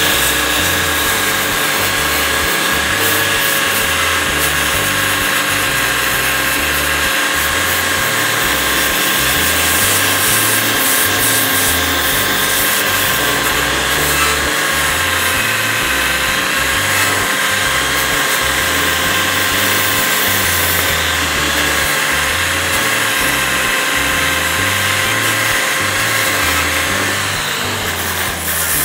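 Corded Makita 4-1/2" angle grinder with a knotted wire wheel running at full speed with a steady high whine as the wire wheel brushes and strips loose bark off a cedar board; the motor winds down near the end.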